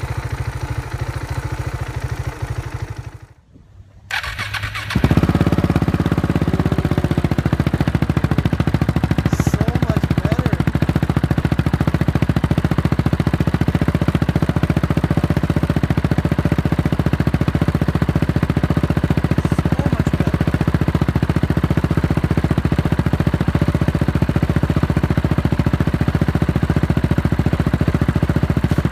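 KTM 690 Duke's single-cylinder engine running through an aftermarket exhaust. The sound drops out briefly about three seconds in, then comes back louder and idles steadily to the end.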